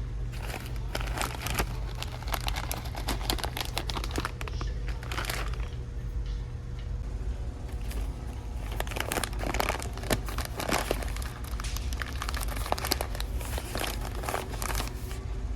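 Plastic packaging crinkling in irregular bursts as it is handled, over a steady low hum.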